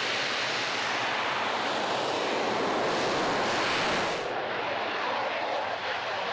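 JAS-39 Gripen fighter's single Volvo RM12 turbofan in afterburner on the takeoff roll and climb-out: a loud, steady jet roar. About four seconds in, the hiss at the very top cuts off abruptly while the roar carries on.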